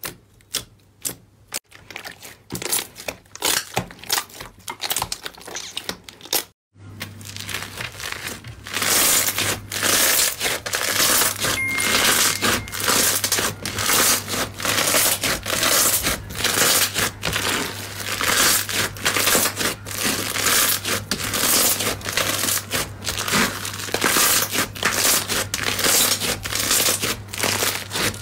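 Hands kneading and pressing slime: at first sparse soft pops and squelches, then, after a cut about seven seconds in, foamy yellow slime being squeezed and stretched with dense, loud crackling. A faint steady low hum runs under the crackling.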